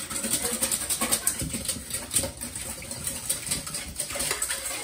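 A wire whisk beating a thin oil-and-vinegar citrus dressing in a metal mixing bowl: quick, irregular clattering and scraping strokes of wire against the bowl. The strokes stop near the end.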